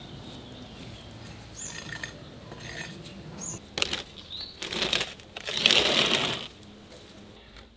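Metal baking tray clinking and scraping across the floor of a wood-fired brick oven as it is pushed in by hand, with a louder, longer scrape late on. A few short bird chirps.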